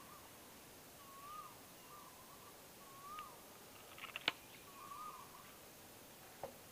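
A bird calling over and over, a short rising-and-falling note repeated every second or two. A sharp click about four seconds in.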